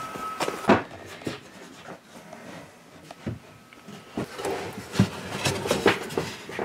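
Wooden cabinet doors being handled and fitted into their face frames: a string of separate knocks and taps, wood against wood, with a sharper one about a second in and several close together near the end.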